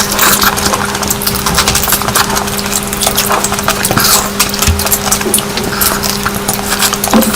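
Close-miked eating sounds: chewing and mouth smacking, a dense run of quick wet clicks, over a steady faint hum.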